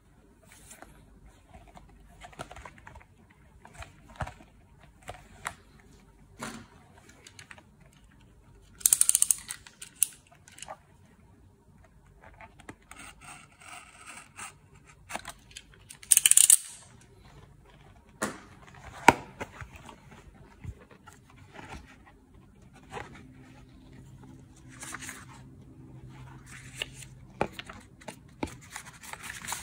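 Handling of card and paper: a snap-off utility knife slicing open a card envelope, with two longer loud rasping cuts, one about nine seconds in and one about sixteen seconds in, among light rustles and clicks of the paper being handled.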